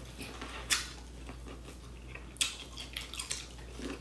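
A person eating close to the microphone: quiet chewing broken by a few short, sharp wet smacks, one under a second in and another a little past halfway.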